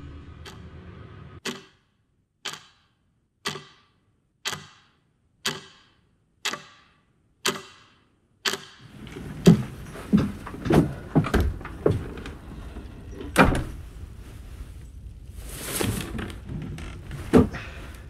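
Sharp, echoing clicks about once a second, eight in a row. These give way to a run of irregular knocks and thumps over a low background.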